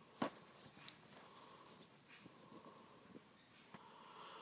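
Faint taps and handling noise of fingers on an iPad's touchscreen and case, with one sharper click about a quarter second in and scattered light ticks after it.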